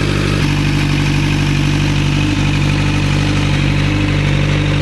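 Kawasaki Z900's inline-four engine idling steadily through an Austin Racing slip-on exhaust.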